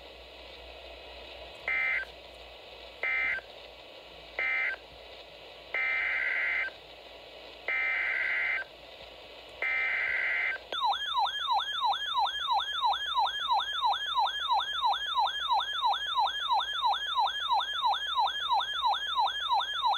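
Emergency Alert System data bursts: three short digital tone bursts, then three longer ones, the warbling data signal that ends one alert message and opens the next. About 11 seconds in, a loud warbling siren-like attention tone starts, sweeping rapidly up and down about three times a second.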